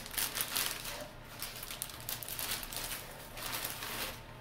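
Plastic zip-top bag rustling and crinkling in uneven bursts as a toy horse and rider are handled and pulled out of it.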